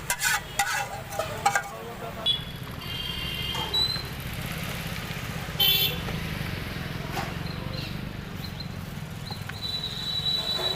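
Street noise: a steady low rumble of passing traffic, several sharp clinks in the first two seconds, and short high-pitched horn toots about two to three seconds in and again near six seconds.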